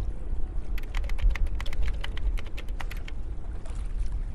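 Water lapping over a steady low rumble. A quick run of sharp clicks, about twenty in two seconds, starts about a second in.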